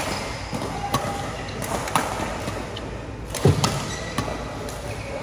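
Badminton rackets striking a shuttlecock: sharp pops about a second apart, with one heavier thud about three and a half seconds in, over the steady background noise of a sports hall.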